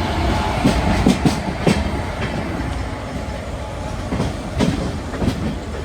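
Intercity express train running on the track: a steady rumble with sharp, unevenly spaced clacks of wheels passing over rail joints.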